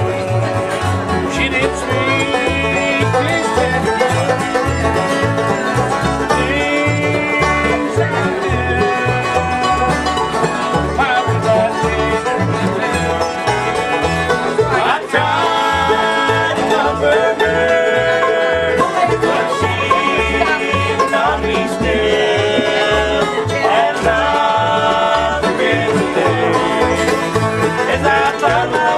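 Bluegrass band of banjo, acoustic guitars, mandolin and upright bass playing a tune together at a steady pulsing beat.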